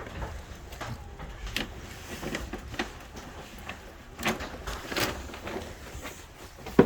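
Tokyo Monorail 1000 series train rolling into its terminus: a steady low rumble with scattered clicks and knocks, and one sharp clunk near the end.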